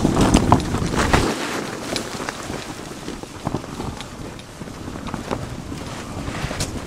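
A fabric canopy rustling and flapping as it is pulled and handled by hand, with scattered short rustles. Wind buffets the microphone with a heavy rumble for about the first second.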